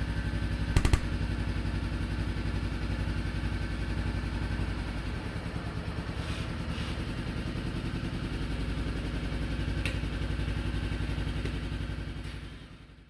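Motorcycle engine running steadily, with a sharp clack about a second in, fading out near the end.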